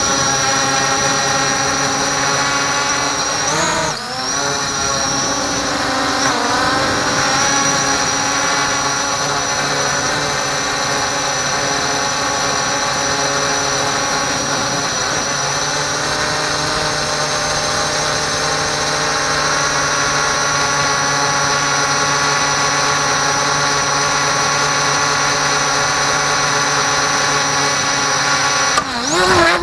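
Quadcopter drone's electric motors and propellers whining steadily in flight, heard close from the drone's own camera. About four seconds in, and again a couple of seconds later, the pitch briefly dips and swoops as the throttle changes. Near the end the pitch suddenly drops and swings, as the drone starts to fall.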